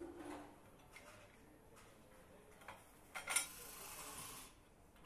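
Light clicks and knocks of hand tools and parts at an engine assembly bench, with a short hiss lasting just over a second about three seconds in.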